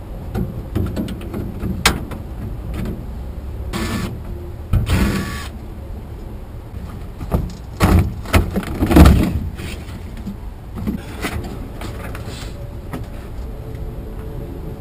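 Hand work on an old car body being stripped for parts: scattered metal knocks and clunks, the loudest a pair of heavy knocks about eight and nine seconds in, with two short bursts of scraping or rattling around four and five seconds.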